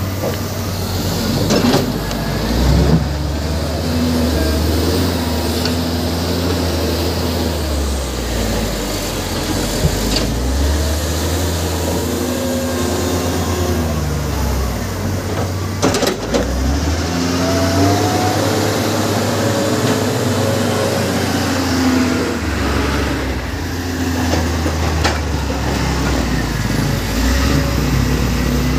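Diesel engines of a crawler excavator and a wheel loader working heavy earth and rock, their low drone swelling and easing several times as they take load. A few sharp knocks of rock or bucket come through, about 2, 10 and 16 seconds in.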